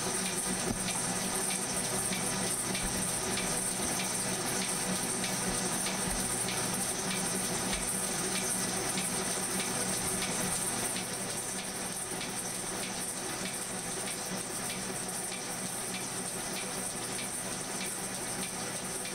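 Metal shaper cutting a steel block: a steady hum and hiss from the running machine, with a light tick at each stroke, about two a second. The sound drops a little about eleven seconds in.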